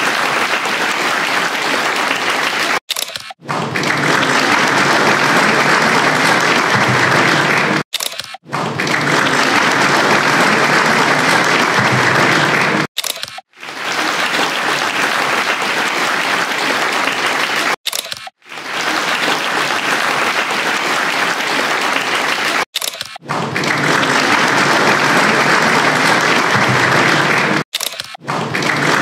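Audience applauding, a steady clatter of clapping that breaks off suddenly for a moment about every five seconds and starts again.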